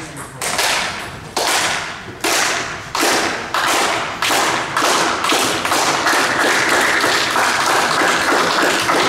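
Sharp smacks ringing in a large sports hall, first about one or two a second and coming faster, until about five seconds in they merge into a continuous dense patter.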